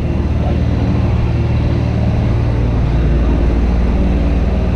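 A motor vehicle's engine running steadily, a low even hum over street noise.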